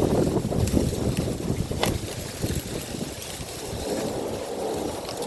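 Wind buffeting the microphone: an irregular low rumble that rises and falls, with a single sharp click about two seconds in.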